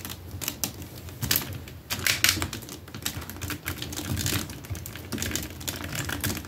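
Hard plastic parts of a large action figure clicking and tapping irregularly as its arms and gauntlets are moved and posed by hand.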